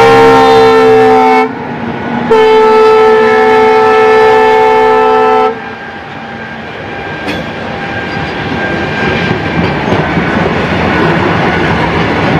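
Indian Railways diesel locomotive's multi-tone air horn sounding as the locomotive passes close by, its pitch dropping as it goes past. It gives one blast of about a second and a half, then after a short break a longer blast of about three seconds. Then come the rumble and clickety-clack of covered freight wagons rolling past on the track.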